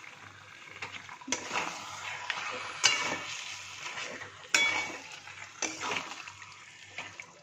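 Metal spatula scraping and stirring marinated meat around a metal kadai, several scraping strokes a second or so apart over a sizzle of frying spice paste: the meat being tossed in the masala for kosha.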